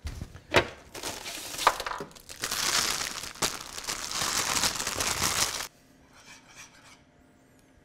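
A few sharp knocks, then a plastic bag of naan crinkling and rustling as it is handled and opened; the crinkling cuts off suddenly about two-thirds of the way in.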